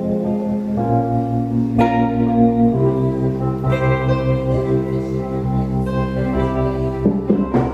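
Live electronic keyboard playing slow held chords that change about once a second, the instrumental lead-in to a ballad. A few short crackles near the end.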